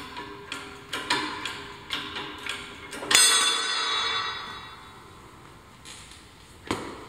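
Shop press bottle jack being pumped by hand, its handle and valve clicking about twice a second. About three seconds in, a sharp metallic clank rings out and fades over a second or so as the pressed-on brass gear lets go of the steel spindle spacer. A single dull knock near the end.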